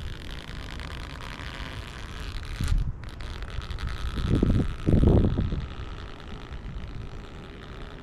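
Wind buffeting the microphone in low rumbling gusts, strongest about two and a half, four and a half and five seconds in, over a steady outdoor hiss.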